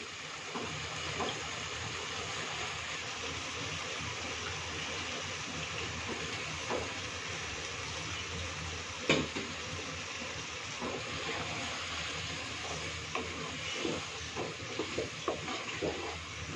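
Small fish frying in a kadai of cooked-down onion and garlic masala: a steady sizzle, with scattered light clicks and knocks and one sharper knock about nine seconds in.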